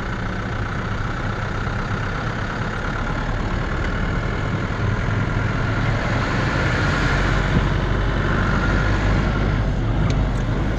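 A vehicle's engine running steadily, heard from inside the cab with a low rumble, a little louder in the second half.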